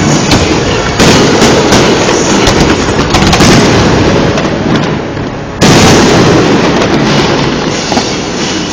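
Fireworks display: sudden loud bursts about a second in and again past the middle, with a dense run of crackles and bangs in between.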